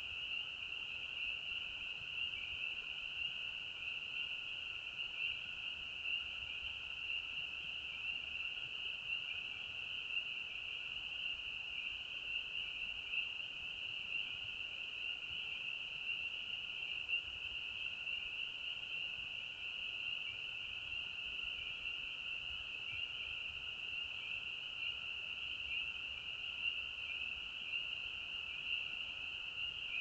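A chorus of many frogs calling at once, a dense, unbroken, high-pitched mass of calls, with a fainter, lower layer of calls beneath it.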